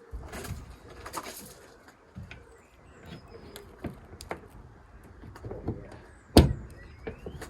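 Land Rover Defender bulkhead vent flap being worked shut against its new rubber seals: a few light clicks and knocks, then one sharp thunk a little over six seconds in as the flap closes. Birds call faintly in the background.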